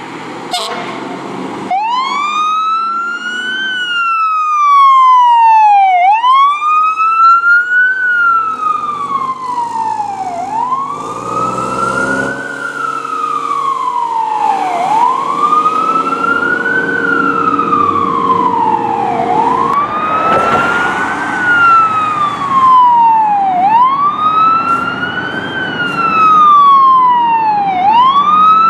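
Fire truck siren wailing, its pitch rising and falling about every four seconds.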